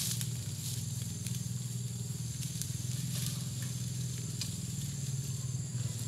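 Dry oil palm fronds rustling and crackling as they are dragged and piled, in scattered short crackles, over a steady low hum.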